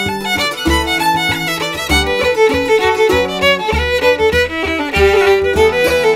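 Irish traditional reel played at a lively pace on the fiddle, with a long-necked bouzouki strumming chords and a bodhrán beating out a steady pulse of deep thumps underneath.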